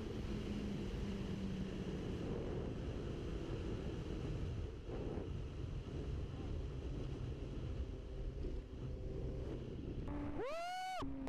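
Motorcycle being ridden along a road: steady wind rush on the microphone over a low engine drone. Near the end a sport bike's engine is revved in quick blips, each pitch sweep rising and falling.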